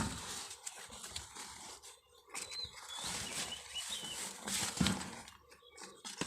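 Rustling and handling noises with a couple of sharp knocks, while a small bird chirps a few times in the background.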